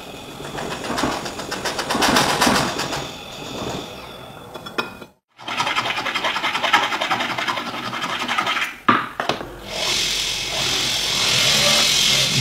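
Metal ring being worked by hand: a run of fast scraping from a hand file on the band after a brief cut, then a steady high buzz and hiss as a rotary tool's fine burr grinds the metal over the last few seconds.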